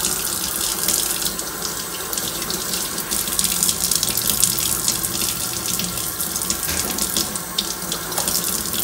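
Kitchen faucet running steadily into a stainless-steel sink, the stream splashing as pieces of catfish are rinsed under it.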